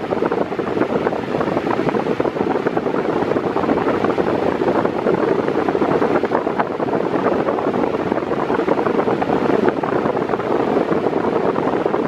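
Mondial Maxi Power Black 40 cm 140 W fan running at medium speed, a steady rush of air from the blades blowing onto the microphone.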